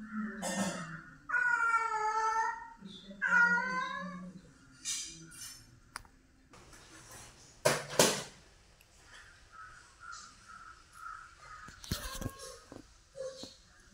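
Cat meowing twice in long, wavering calls, then two loud, short, sharp bursts of noise about eight seconds in, and a few light knocks near the end.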